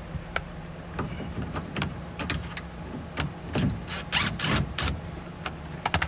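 Clicks, taps and rattles of small plastic and metal parts being handled at the bottom hinge of a refrigerator door. A few louder scraping rustles come about four to five seconds in.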